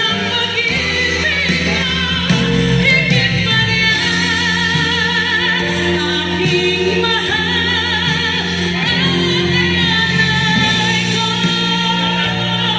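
Music with a singer holding long notes with vibrato over steady sustained chords and a bass line.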